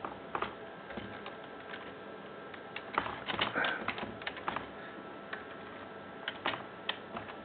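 Computer keyboard being typed: scattered key clicks, with a quick run about three seconds in and another near the end.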